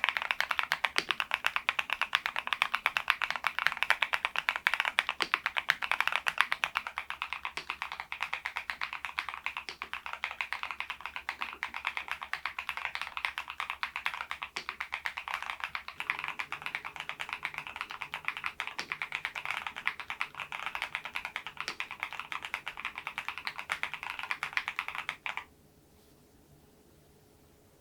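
Fast continuous typing on a HALO65 V2 mechanical keyboard with thick PBT Cherry-profile keycaps: a dense, even stream of key clacks that stops abruptly a few seconds before the end.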